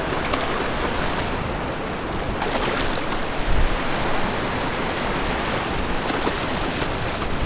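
Shallow surf washing in: a steady rush of breaking waves and foamy wash, with a brief louder surge about three and a half seconds in.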